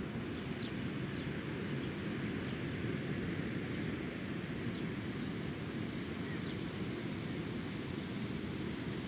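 Steady rushing wind noise on the microphone, strongest low down, with a few faint high chirps in the first second or two.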